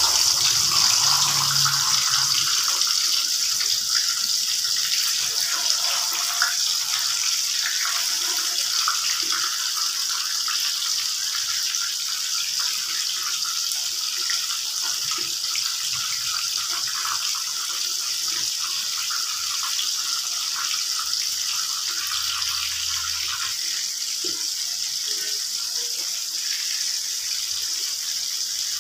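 Marinated torpedo scad pieces sizzling in hot oil in an aluminium kadai: a steady frying hiss that slowly eases as it goes on.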